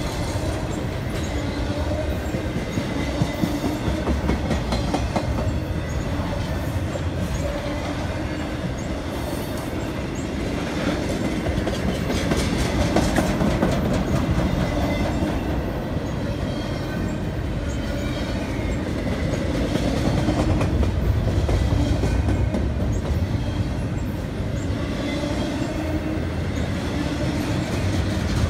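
CSX double-stack intermodal freight train rolling past: a steady rumble of steel wheels on the rails with a continuous run of clicks from the cars passing over the track, swelling a little twice.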